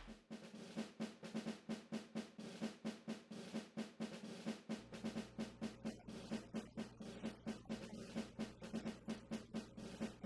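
Rapid, even series of faint clicks, about four a second, with a faint low hum coming in about halfway through.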